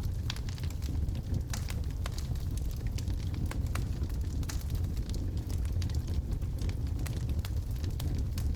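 Wood logs burning in a fireplace, crackling with irregular sharp pops over a steady low rumble of the fire.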